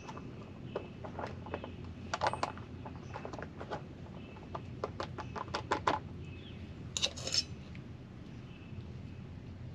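Irregular light clicks and knocks of objects being handled, bunched together about five to six seconds in, then a short, louder rustling scrape about seven seconds in.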